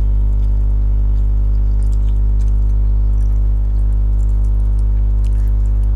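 Steady electrical hum, a low buzz made of a stack of even tones, with faint small clicks and mouth sounds of someone eating.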